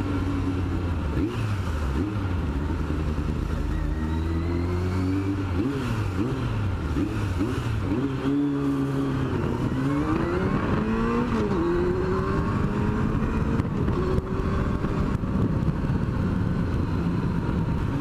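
Yamaha FZR sport bike's inline-four engine, heard from the rider's helmet: it runs at low, steady revs for the first few seconds, then rises and falls in pitch several times as the bike accelerates through the gears, before settling into a steadier cruise.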